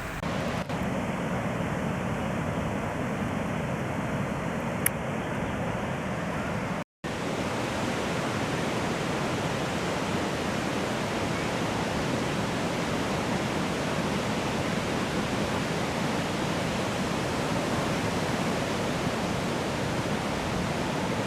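Steady rushing noise of wind on the microphone and moving water, with a short click about five seconds in and a brief dropout just before seven seconds.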